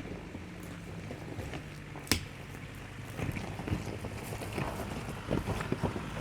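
A pickup truck crawling over a rough dirt trail: the engine runs low and steady while tyres crunch over rocks and the body and suspension knock and rattle, with one sharp bang about two seconds in and the knocks coming thicker in the second half.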